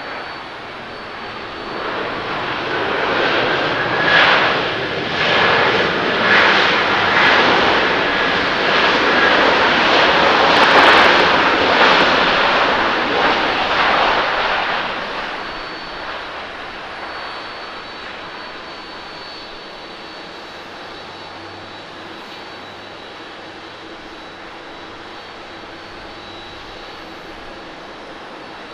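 Jet engines of an Airbus A330-300 airliner on its landing rollout: a loud rush builds over the first few seconds, swells and pulses for about ten seconds, then fades about fifteen seconds in to a steady lower hum as the aircraft slows.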